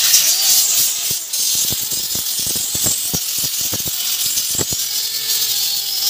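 Cutting machine slicing through welded wire mesh on a cage door panel: a steady high hiss with sharp irregular clicks, about two or three a second, as it catches the wires.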